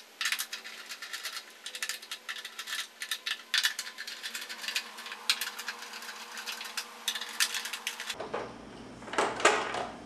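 Quick, irregular small metallic clicks and rattles of a wrench working the 10 mm bolts that hold a scooter's windscreen on, with a louder clatter about nine and a half seconds in.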